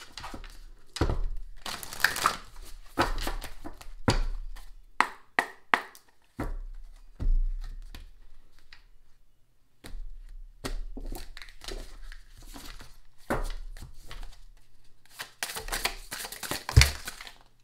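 A deck of tarot cards being shuffled by hand: irregular bursts of papery riffling, snapping and slapping of the cards, with a pause partway through and a single louder thump near the end.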